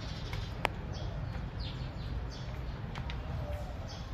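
Cats eating dry kibble from plastic bowls, with a few sharp crunches or clicks, while birds chirp in the background over a steady low rumble.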